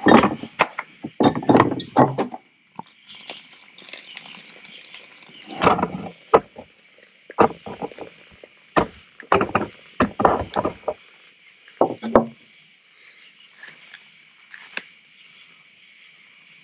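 Scattered knocks, clicks and rustles of food, a plastic bag and a plate being handled on a table, a few of them heavy thumps, over a steady high chirring of night insects.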